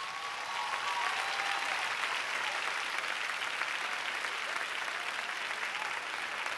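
A large theatre audience applauding, swelling over the first second and then holding steady, with a few voices calling out in the first two seconds.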